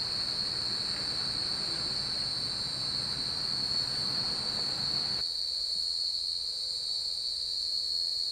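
Steady, high-pitched insect chorus trilling on one unbroken tone. For the first five seconds or so a rushing noise runs under it and cuts off abruptly.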